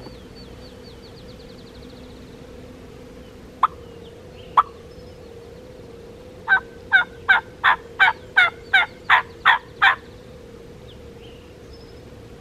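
Turkey yelps: two single notes about a second apart, then a run of about ten yelps at roughly three a second.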